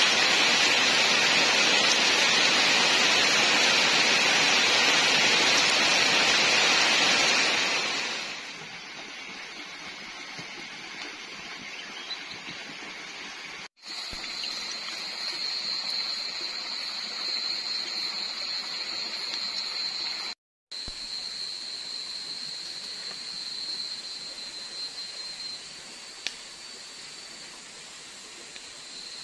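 Heavy rain pouring steadily on rainforest foliage, dropping to a much softer hiss about eight seconds in. Later, a small wood campfire with a few faint crackles under a steady high-pitched drone of night insects.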